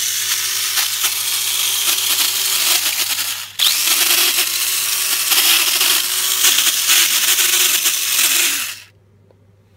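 Mini 4WD car's small electric motor and gears running flat out, a loud high whir with a steady lower hum beneath it. It cuts out for a moment about three and a half seconds in, then runs again until stopping near the end. It is the dull abnormal noise that appears when the car is switched on, whose cause the owner cannot find: the gears are not chipped.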